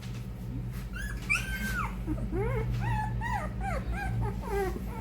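Three-week-old XL American Bully puppies whining: a run of short, high-pitched whines that rise and fall, starting about a second in and continuing until near the end.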